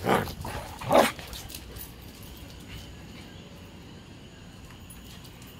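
A husky barking twice, about a second apart, the second bark the louder.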